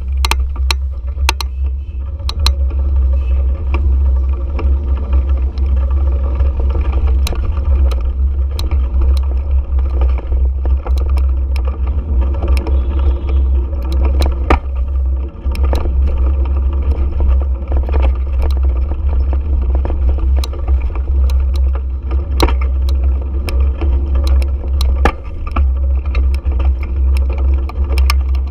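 Heavy, steady low rumble of a vehicle ride picked up by a mounted action camera, with many sharp clicks and rattles throughout.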